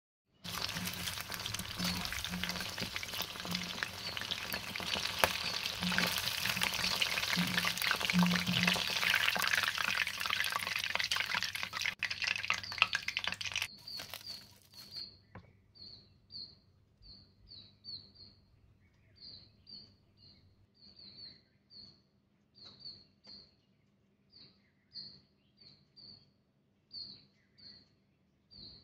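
Chicken deep-frying in hot oil, a steady loud sizzle that cuts off suddenly about halfway through. After it, a bird chirps: short, high chirps repeated about once a second.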